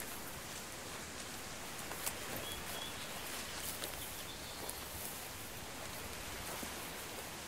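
Faint steady hiss with scattered soft crackles and ticks, and a brief thin high tone about two and a half seconds in.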